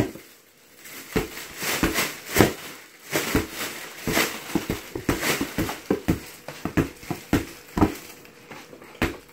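Hands slapping and bouncing a large inflatable ball again and again: an irregular run of short smacks and thumps, a dozen or more, some close together.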